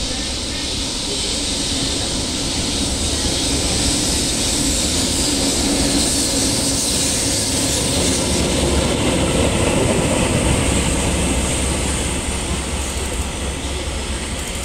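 An EF65 electric locomotive running through a station with an unpowered HD300 hybrid shunting locomotive in tow. The train's rumble and wheel-on-rail noise build as it approaches, are loudest as it passes about eight to ten seconds in, then fade as it moves away.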